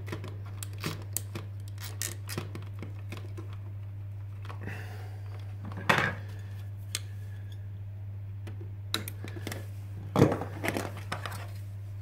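Small plastic clicks and knocks from handling a Cat5e network socket module, its plastic back box and faceplate, with louder knocks about six seconds and ten seconds in. A steady low hum lies underneath.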